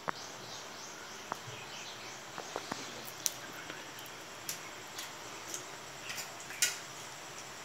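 Scattered light clicks and short scrapes of a spoon against a ceramic plate as fried rice is scooped up, over a faint steady hiss.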